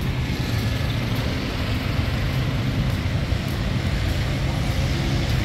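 Steady road traffic noise on a busy city street: a continuous low rumble of vehicle engines and tyres, with no sudden events.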